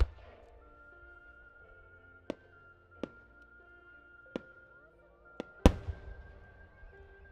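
Fireworks shells bursting overhead: six sharp bangs spread over about six seconds, the loudest one about five and a half seconds in, with soft background music playing underneath.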